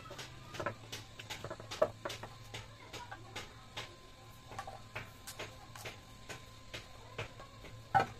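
Light clicks and taps of a knife whittling a wooden handle and of the wooden handle being test-fitted into a metal saucepan's socket, a few a second, with a sharper knock about two seconds in and the loudest one near the end.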